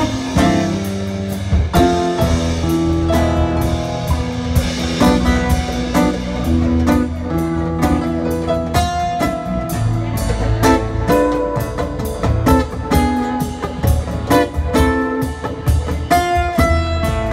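Live band playing: electric or acoustic guitar, bass and drum kit with keyboard, over a steady driving beat.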